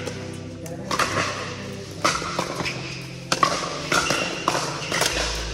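Pickleball rally: paddles striking the plastic ball in sharp pops about once a second, echoing in a large indoor hall.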